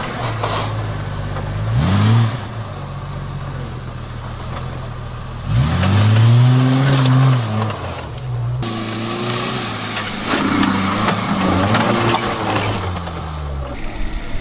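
Off-road 4x4's engine revving in bursts while it works over rough ground: a short rev about two seconds in, then a longer one that rises and falls from about five and a half seconds. The longer rev breaks off suddenly, and the engine runs on with uneven throttle blips.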